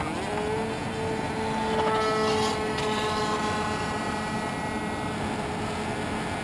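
Electric motor and pusher propeller of a Multiplex EasyStar foam RC plane spinning up for takeoff: a whine that rises in pitch in the first moment, then holds steady as the plane climbs out.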